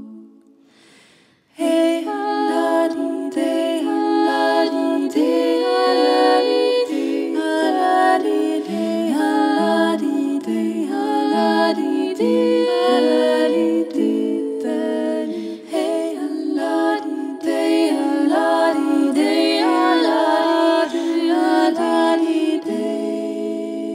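Four women singing a cappella in close harmony. A held chord fades away, and after a short pause, about a second and a half in, the voices come back in together and sing on with moving harmonies.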